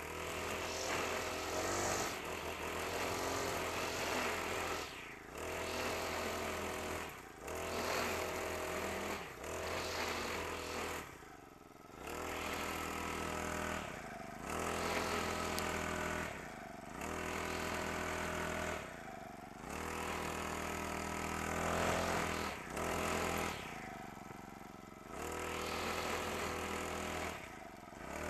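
Honda GX35 four-stroke brush cutter engine running at high revs, dropping back and revving up again about every two to three seconds as the throttle is let off and squeezed, while the cutting head mows grass.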